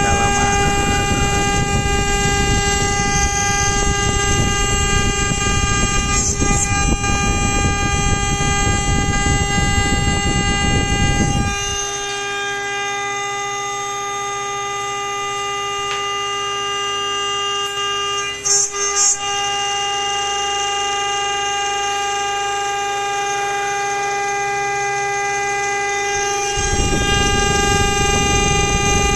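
CNC router spindle running with a steady, even-pitched whine while an end mill cuts a slot in metal plate, with a rough cutting noise under the whine. The cutting noise stops about twelve seconds in, leaving only the spindle whine and a few brief knocks, and starts again near the end as the cutter re-engages.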